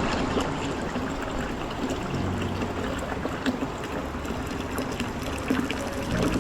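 Rushing water: a steady, loud rush of flowing water that cuts in suddenly, with soft background music underneath from about two seconds in.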